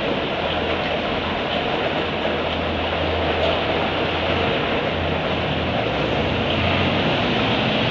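Laundromat machines running: a steady rumble and hiss with a low hum underneath.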